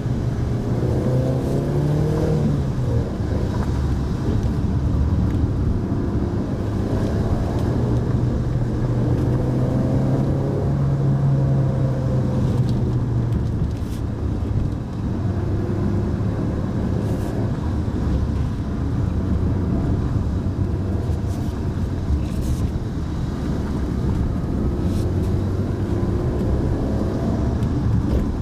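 Mitsubishi Pajero Mini's 660 cc kei-car engine running under way, its note rising and falling with the throttle, with a short dip in level about halfway through and a few faint clicks.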